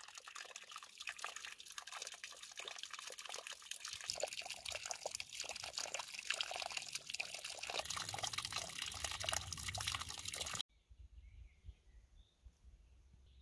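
Spring water trickling and splashing out of a hollowed wooden spout, with a steady fine patter; it cuts off suddenly near the end, leaving a faint quiet background with a few soft bird chirps.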